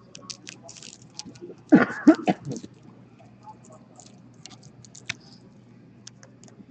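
Light crinkling and clicking of a clear plastic bag and card sleeve being handled, with a brief snatch of a voice about two seconds in.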